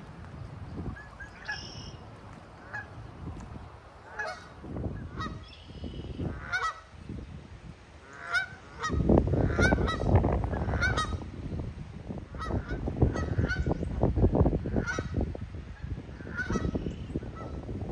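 Geese honking, many short calls repeated every second or so. A low rumbling noise joins about halfway through.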